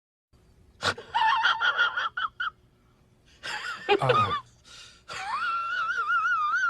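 Comedy sound effect: a high-pitched, wheezing squeal in short bursts after about a second, then a longer wavering squeal from about five seconds in.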